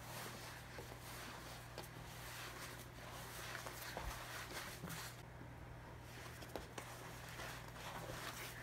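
Hands kneading challah dough on a floured stone countertop: faint, irregular soft pushes and slaps of the dough against the counter, over a steady low hum.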